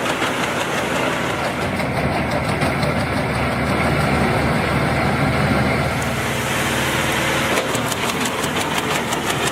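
Wood chipper's engine running steadily under a dense mechanical drone, with a fast regular ticking coming in about two seconds before the end.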